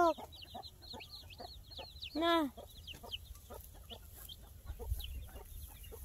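Native chicken chick peeping over and over, a run of short, high, falling cheeps several a second. It is a young chick that has got out through the netting of its pen.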